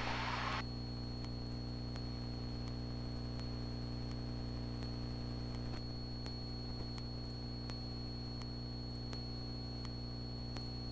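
Steady electrical hum with faint static on the aircraft's headset/intercom audio feed, made of several fixed pitches. Faint ticks repeat at a regular pace.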